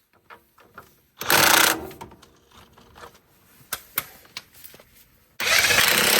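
Impact wrench running in two bursts, a short one about a second in and a longer one near the end, with light metallic clicks and taps of tools between them.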